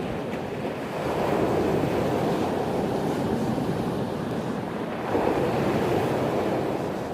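Sea waves surging and washing, with wind. The wash swells about a second in and again around five seconds.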